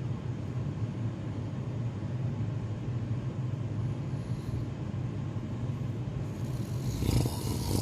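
A person snoring: a steady low rumble, then a louder, breathy rasp near the end.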